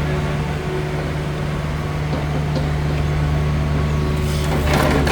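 Mini excavator's diesel engine running steadily with a low hum, and a brief rushing, scraping noise about four and a half seconds in.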